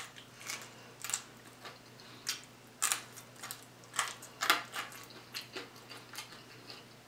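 Eating crispy fried croaker off the bone by hand: scattered small crunches and mouth clicks as the fried fish is bitten and nibbled, irregular and short.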